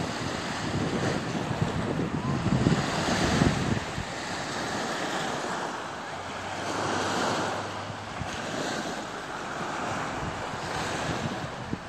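Small lake waves lapping and washing up onto a sandy beach, with wind buffeting the microphone in gusts, strongest about three seconds in.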